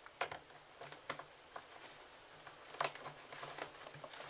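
A series of small clicks and knocks as D-cell batteries are handled and loaded into a flashlight, with one sharper click just after the start.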